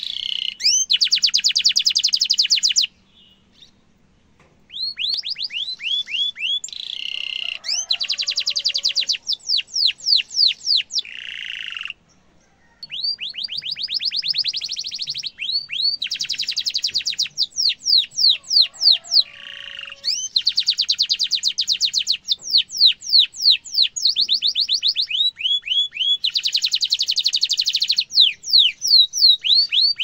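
A domestic canary singing long phrases of rapid rolling trills and quick runs of repeated down-slurred chirps, a varied song used as master song for young canaries. The song breaks off briefly twice, about three seconds in and again about twelve seconds in.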